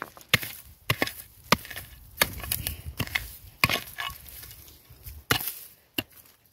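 Small pick-mattock chopping into dry, stony soil: about eight sharp strikes at an uneven pace, with a pause near the middle.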